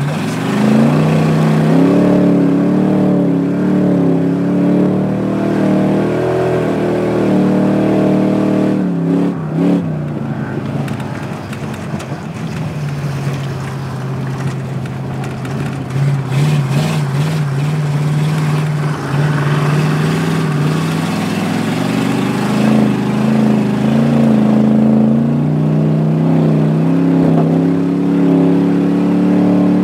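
Car engine running hard during an ice race on a frozen lake, its pitch rising and falling with the throttle. It drops lower for several seconds in the middle, then climbs again.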